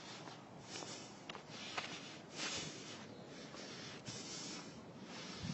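Footsteps crunching underfoot at a walking pace, with a few faint clicks.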